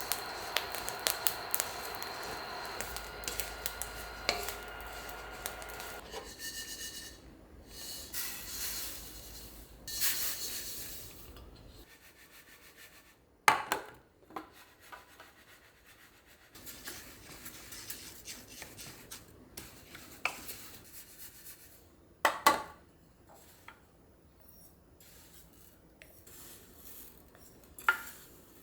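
Kitchen handling sounds: dishes and utensils rubbing and scraping, with a steady hum and small ticks for the first few seconds and three sharp clinks or knocks spread through the rest.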